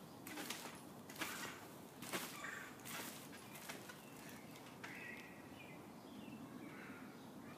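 Faint bounces on a trampoline mat, about one a second, four times, then stopping. Birds chirp faintly in the background.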